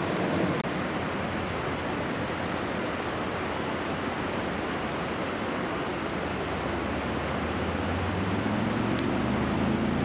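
Shallow stream rushing over rocks and riffles: a steady wash of water noise. A low rumble grows underneath it in the last few seconds.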